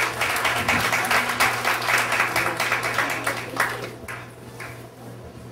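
Audience applause, many hands clapping, dying away about four seconds in.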